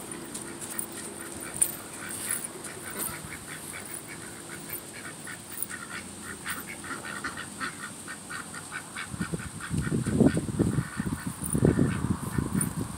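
Domestic ducks quacking in a fast, repeated run of calls, about four or five a second. In the last few seconds a louder low rumbling noise comes in over them.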